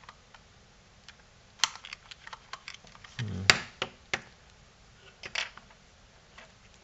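Hard plastic clicks and taps as a hair straightener's spring-loaded hinge is worked apart by hand, the threaded hinge centre being pushed out. The clicks come irregularly, a sharp one about a second and a half in and the loudest about three and a half seconds in, just after a brief hum of voice.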